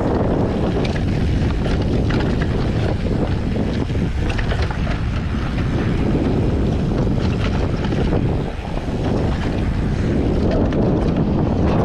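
Wind buffeting the microphone on a fast e-mountain-bike descent, a loud steady rumble with scattered clicks and knocks over rough trail.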